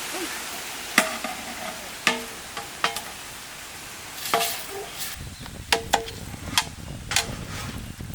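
Metal scoop clanking against a large metal cooking pot about eight times, each knock ringing briefly, over a steady sizzling hiss, as boiled rice is scooped and tipped onto rabbit curry masala to layer biryani.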